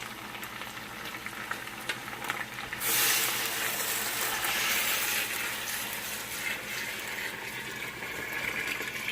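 Chicken pieces crackling and sizzling in a hot pot, then about three seconds in water is poured in with a loud rushing hiss that carries on, easing a little near the end.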